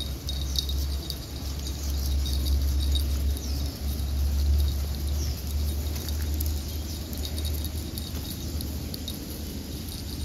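Woodland outdoor ambience: a steady low rumble, with scattered faint high chirps and ticks from insects and birds.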